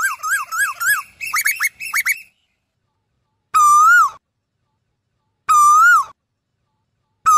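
Asian koel calling: a fast run of short rising whistled notes that lasts about two seconds, then, after a pause, single calls about two seconds apart, each rising and then dipping.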